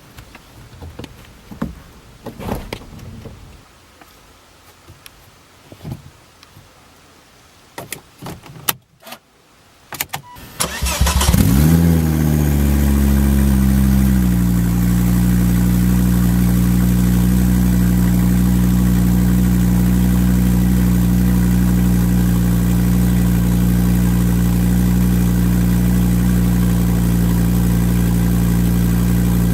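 A few scattered clicks and knocks, then about eleven seconds in the Volvo S40 T5's turbocharged 2.5 L inline-five cranks briefly and fires on a cold start. It flares up in revs, drops back about three seconds later and settles into a steady, loud idle. It is very loud and raw-sounding because the exhaust is leaking out of a broken flex pipe just after the turbo.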